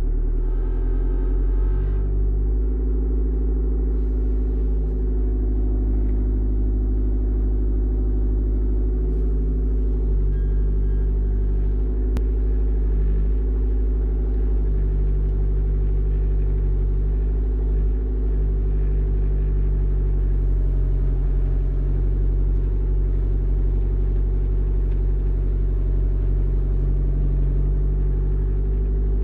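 Mini excavator engine running steadily, with small shifts in its note around two seconds in and again around ten to twelve seconds in.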